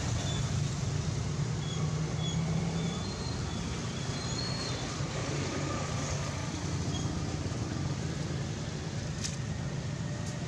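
Steady low rumble of background noise, like distant road traffic, with a few faint short high-pitched chirps in the first half and two sharp clicks near the end.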